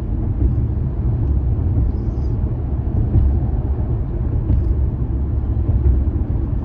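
Steady low rumble of a car driving, road and engine noise.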